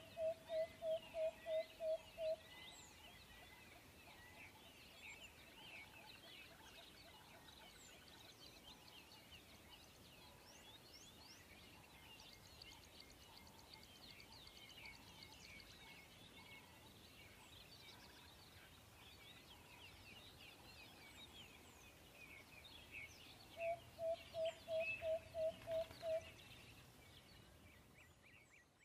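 Faint chorus of many birds chirping, with a lower call pulsing about four times a second in a run of about ten, once at the start and again near the end.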